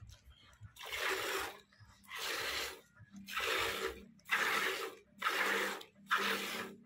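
Hand-milking a desi cow into a plastic bucket: milk squirting from the teat in a regular series of about six spurts, roughly one a second, starting about a second in.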